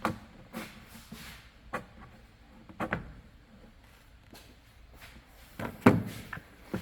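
Clicks and knocks of tools and plastic and metal trimmer parts being handled during disassembly, a few scattered strikes with the loudest cluster about six seconds in.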